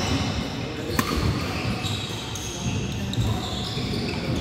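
Badminton doubles rally on a wooden indoor court: one sharp racket strike on the shuttlecock about a second in, echoing in the large hall, with shoes squeaking on the floor.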